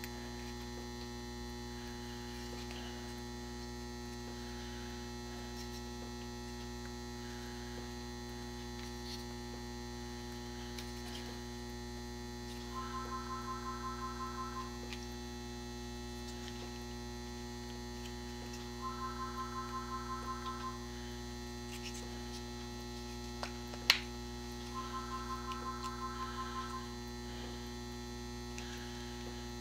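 Steady electrical mains hum from a battery charger powering an electrolysis rust-removal tank. Three times, a quick run of beeps in two tones, about five a second, sounds for about two seconds, recurring every six seconds or so. One sharp click comes near the end.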